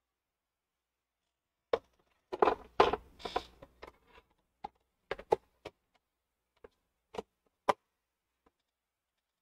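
Clatter of a plastic embroidery hoop being handled at an embroidery machine: a run of knocks and rattles about two seconds in, then about seven separate sharp clicks over the next few seconds.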